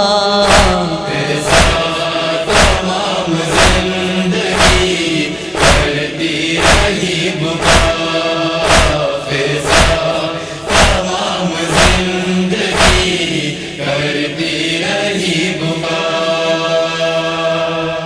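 A wordless chorus of men's voices chanting a held drone under rhythmic matam, the chest-beating of Shia mourners, at about one heavy slap a second. The beats stop about thirteen seconds in while the voices hold on.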